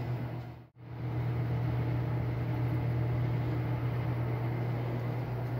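A steady low mechanical hum over a hiss, with a brief dropout under a second in.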